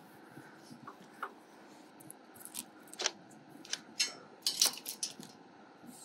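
Long black straps being handled and threaded around a rod-locker tube on a truck rack: a scattered series of short plastic clicks and rattles, the busiest stretch about halfway through.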